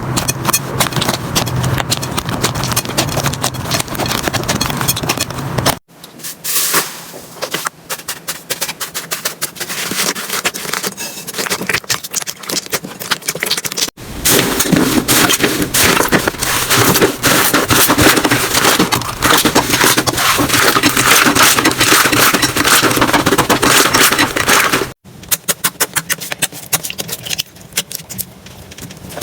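Slime being squeezed and poked by hand: dense crackling and popping clicks. The texture changes abruptly about six, fourteen and twenty-five seconds in as one slime gives way to another.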